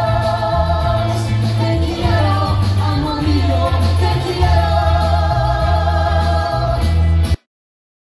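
Live pop band playing, with male and female singers over a heavy bass line and drums. The music cuts off suddenly near the end.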